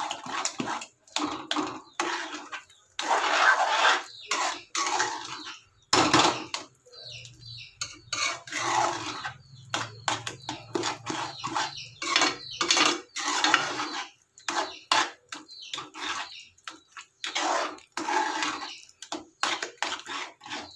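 A steel spoon scraping and stirring a thick semolina and palm-jaggery mixture in a stainless steel kadai, in a run of short, irregular strokes with brief pauses.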